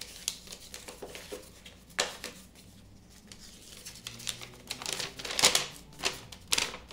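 A folded paper instruction sheet being handled and unfolded, rustling and crinkling in irregular bursts: one sharp crackle about two seconds in and a busier stretch of rustling in the second half.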